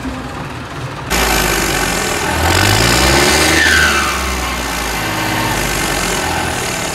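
Tractor diesel engines passing close, the nearest a New Holland 3630, which revs up as it goes by. The engine sound comes in suddenly about a second in and is loudest around three to four seconds in, then settles to a steady run.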